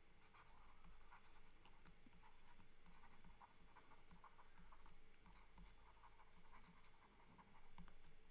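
Faint scratching and light taps of a stylus writing by hand on a pen tablet, in short strokes one after another.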